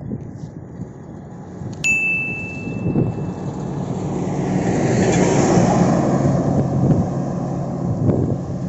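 A truck passing close by on the road, its engine and rushing air building to a peak about five or six seconds in and easing after. A short high ding sounds about two seconds in.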